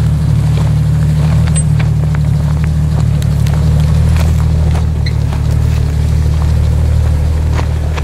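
Lifted Jeep Wrangler TJ Rubicon's engine running steadily as the Jeep crawls over rock, with scattered clicks and crunches from the tyres on stone.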